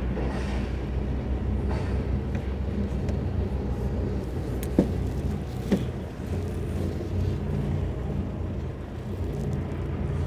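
Steady low drone of a vehicle driving, engine and road noise heard from inside, with two sharp knocks about a second apart midway through.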